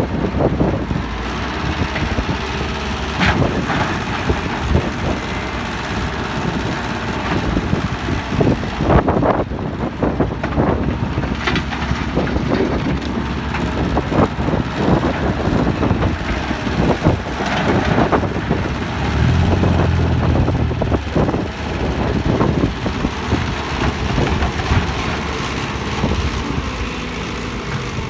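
Diesel excavator running steadily under load, with a constant drone and scattered knocks and clatter, typical of the bucket digging and dumping earth into a truck. A deeper engine hum swells for a couple of seconds about two-thirds of the way through.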